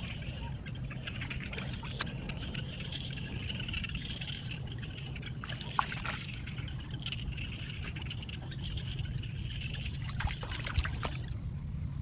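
Water trickling steadily, with a few short sharp sounds about six seconds in and again near the end.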